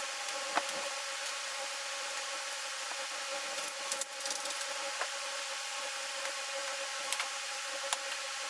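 Steady electrical hum and hiss of room tone, with a few light, sharp clicks scattered through and a short rustle about four seconds in.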